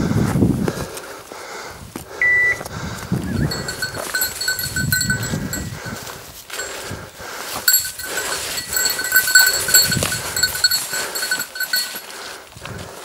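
A small bell on a hunting dog's collar ringing on and off as the dog moves through the brush, with footsteps and the rustle of undergrowth.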